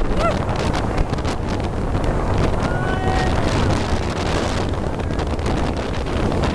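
Wind buffeting the microphone over the rush of water and a speedboat's engine, heading into the plunge pool of a large waterfall. Two short high-pitched cries cut through, about a quarter second in and again around three seconds in.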